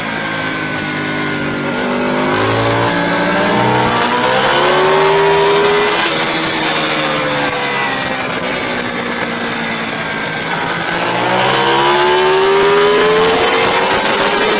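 Racing motorcycle engine heard from onboard the bike. Its pitch falls as it slows, climbs as it accelerates about four seconds in, falls away again, then climbs once more near the end. A steady rushing noise runs underneath.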